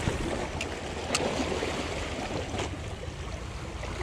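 Small sea waves washing and splashing over shoreline rocks, a steady rushing noise, with a few light clicks in the first three seconds.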